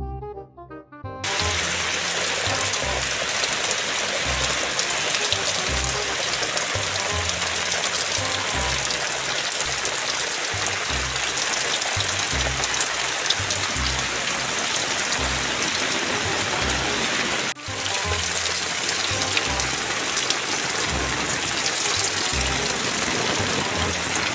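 Heavy rain pouring down and splashing onto painted bicycle frames laid on a mat, a loud steady hiss that starts suddenly about a second in and breaks off for a moment about two-thirds of the way through. Background music with a steady bass beat plays underneath.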